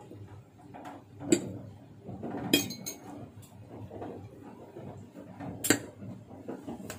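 Metal fork clinking against a bowl while noodles are eaten: a few sharp clinks, at about a second and a half, around two and a half seconds in, and near six seconds.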